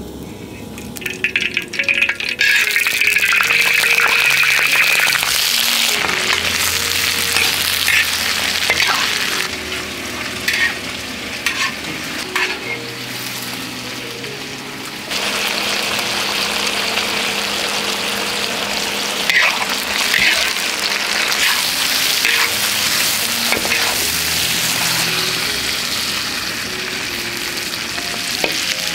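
Food sizzling in a hot wok while a metal spatula scrapes and stirs it. The sizzle starts about two seconds in and gets louder about halfway through.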